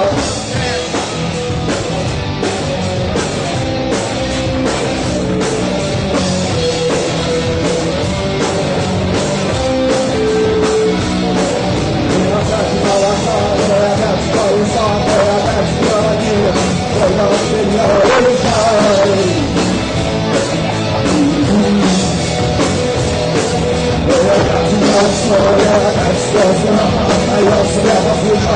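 Rock band playing live, with drums, electric guitar and bass under a sung melody, steady and loud.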